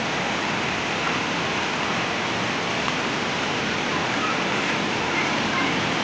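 Steady rushing of a waterfall, an even roar of falling water with no breaks.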